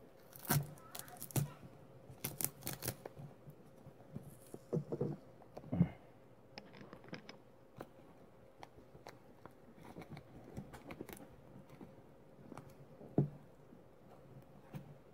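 Brown packing tape and a clear plastic wrap being torn and peeled off a small cardboard-wrapped parcel by hand: irregular crackles and sharp snaps, with a quieter spell in the middle.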